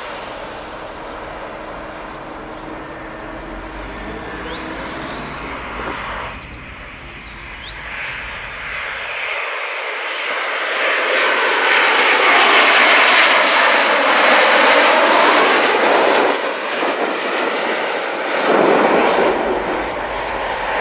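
Jet noise from a Boeing 737 airliner passing low overhead on final approach: it swells from about halfway through, peaks with a sweeping whoosh, and drops off sharply about three-quarters through. Before that comes a steadier, more distant jet noise from an airliner on the runway.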